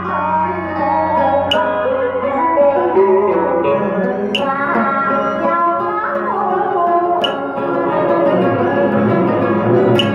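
A woman singing a Vietnamese song into a microphone over an instrumental backing track with plucked-string sounds. A sharp percussive hit in the backing comes about every three seconds.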